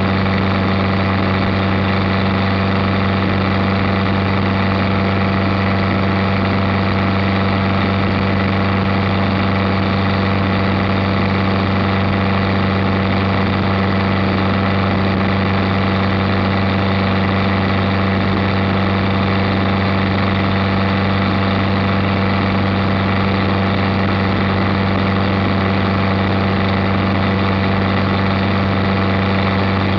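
Roadster's Chevette 1.6-litre four-cylinder engine with a five-speed manual, running at a steady highway cruise with a constant, unchanging drone, over a steady rush of road and wind noise.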